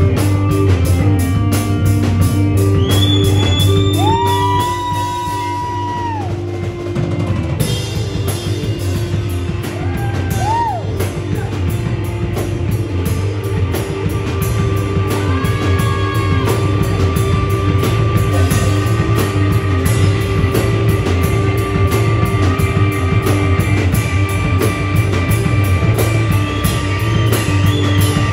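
Live rock band playing: a drum kit keeping a steady beat under electric guitar and keyboard, with heavy bass and a few sliding, bending lead notes.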